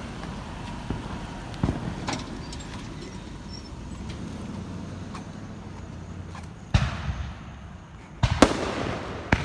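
Fireworks going off: a few faint pops in the first couple of seconds, then a sharp loud bang about two-thirds of the way in and several more near the end, each trailing off with a short echo. A steady low hum runs underneath.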